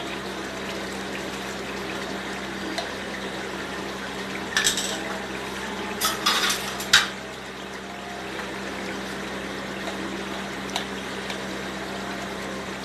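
A spiced onion masala with yogurt frying in an aluminium pot, a steady sizzle and bubble. A metal spatula scrapes and clinks against the pot a few times about halfway through.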